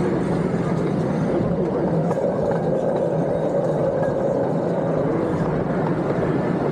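Miniature park train running along its track, a steady unbroken running noise heard from on board an open passenger car.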